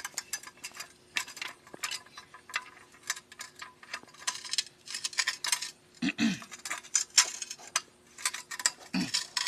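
Car jack being handled and set up: irregular metallic clicking and clinking of its parts throughout.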